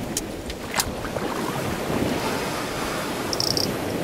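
Plastic and metal parts of a Hoover vacuum cleaner being handled during its teardown: a few sharp clicks in the first second and a brief high squeak about three and a half seconds in, over a steady rushing background noise.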